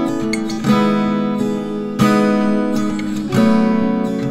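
Background music: acoustic guitar strumming chords, each chord struck and left to ring, a new one about every second and a quarter.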